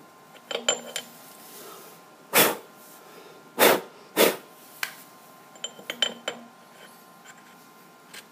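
A steel shaft being worked by hand in the cast-iron lathe tailstock housing: light metal clinks about half a second in and again around six seconds, with three short, louder scraping rushes between about two and four and a half seconds as it slides out of and back into its bore.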